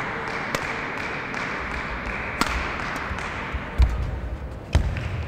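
Badminton rally: sharp racket strikes on a shuttlecock, a second or two apart, over a steady background hiss. Near the end two strikes come with heavy footfall thuds on the court floor, the loudest sounds.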